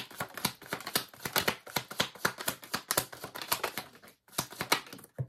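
A deck of tarot cards being shuffled by hand: a quick, dense run of card flicks and clicks, with a short break about four seconds in, then a few more.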